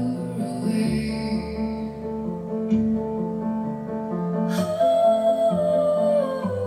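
Slow music with sustained notes and a woman singing, played back through YG Acoustics Vantage 3 loudspeakers. A new long held note comes in about four and a half seconds in.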